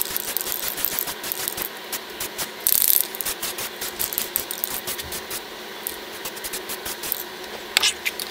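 Aerosol spray-paint can being shaken, its mixing ball rattling in rapid, even clicks, with a short hiss about three seconds in.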